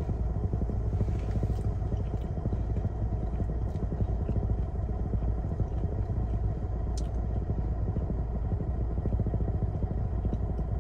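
Steady low vehicle rumble heard inside a car's cabin, with one brief click about seven seconds in.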